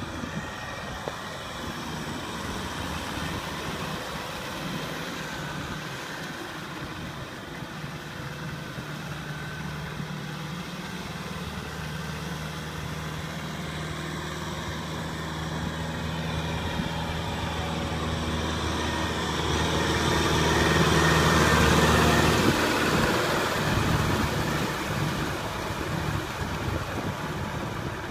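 Farm tractor's diesel engine running steadily while pulling a rotary tiller through wet paddy soil, with the churning of the tiller. It grows louder to a peak about three-quarters of the way through, then eases off.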